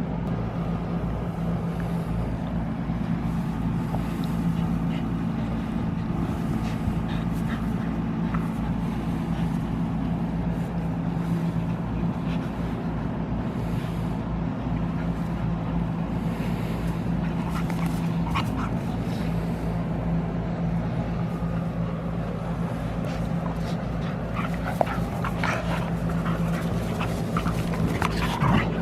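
Dogs play-fighting, whining and growling on and off over a steady low hum. The dog sounds come more often near the end.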